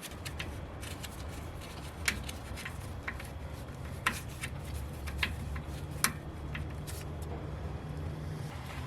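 Hand tools and loose metal parts clinking and clicking during brake and axle dismantling, with four sharper clinks spread over the middle of the stretch, over a steady low hum.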